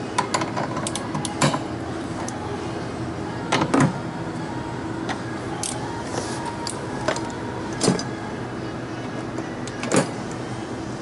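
Scattered clinks and knocks of hand tools and metal fittings being handled, with a sharp double knock a little under four seconds in and another near the end, over a steady machine hum.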